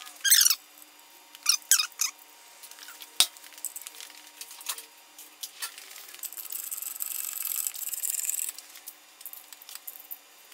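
Small metal clinks and rattles as steel nuts and washers are handled and fitted onto the studs of a transmission-to-engine adapter plate, with a few sharp separate clicks. About six seconds in comes a steady run of fast, fine clicking that lasts about two seconds.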